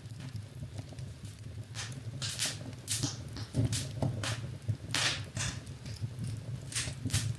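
Fire in a fireplace crackling, with about ten irregular sharp pops over a steady low hum.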